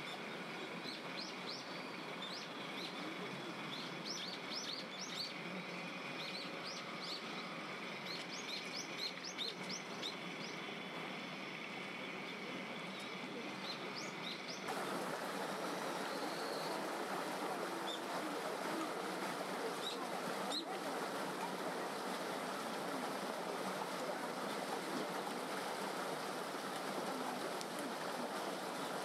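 Small birds chirping in quick short calls over a steady outdoor background. About halfway through the ambience switches abruptly to the even rush of running water from a small stream, with only an occasional chirp.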